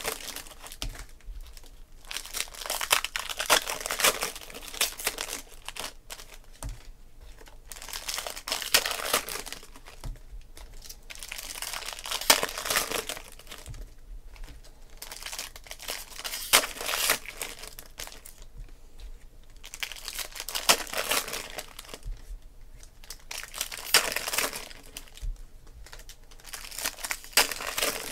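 Foil trading-card pack wrappers being torn open and crinkled by hand, one pack after another, with a burst of crackling foil about every four seconds.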